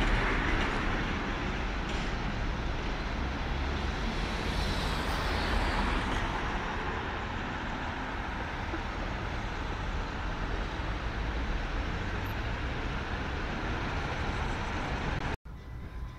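Road traffic at a city intersection, a steady low rumble of engines and tyres. A box truck passing close is loudest at the start, and another vehicle goes by a few seconds later.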